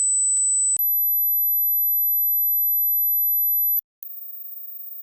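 Pure sine test tones of a high-frequency hearing test, stepping up in pitch. The first, 8,000 hertz tone ends just under a second in. A higher tone then holds steady for about three seconds, breaks off briefly, and a still higher, very high-pitched tone begins near the end.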